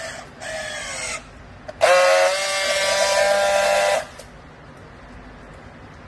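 Battery-powered handheld strapping tool running its motor on a plastic bale strap: a short burst whose pitch falls as the strap draws tight, then a louder steady whine lasting about two seconds as it tensions and seals the strap.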